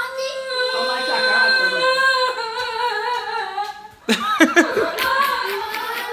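A young child's high voice drawing out long, held sung notes, breaking into a quick up-and-down wavering cry about four seconds in.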